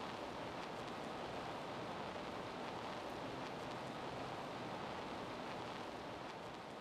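Steady, even hiss of background noise, beginning to fade out near the end.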